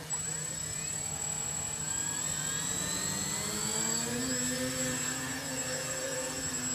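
A radio-controlled CL-84 tilt-wing model's propellers throttling up for a vertical takeoff: a steady whine that rises in pitch from about two seconds in as the model lifts off, then holds.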